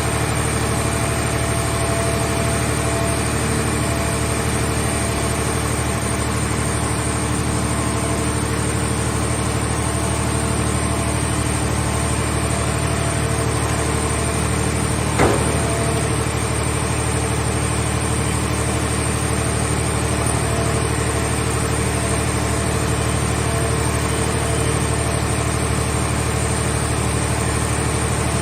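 Engine of a car scrap baler running at a steady idle-like speed, with a single sharp knock about halfway through.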